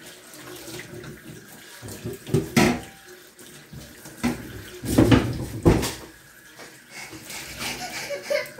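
Water from a kitchen tap splashing into a stainless steel sink as the basin is scrubbed and rinsed with a sponge, with a few louder knocks and splashes about two and a half and five seconds in.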